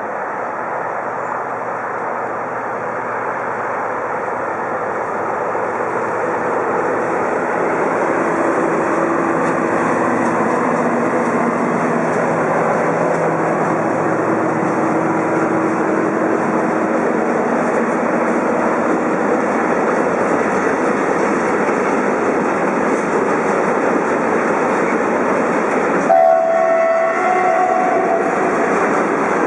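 Ballast train of hopper wagons hauled by two ÖBB Class 2016 diesel-electric locomotives passing: the locomotives' diesel drone fades out about halfway through while the wagons' wheel rumble and rail clatter grow louder and hold steady. A brief high tone sounds near the end.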